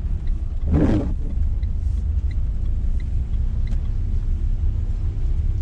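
Steady low rumble of a Renault car's engine and tyres heard from inside the cabin while it drives slowly through town. A short louder burst of noise comes about a second in, and faint ticks recur about every 0.7 seconds.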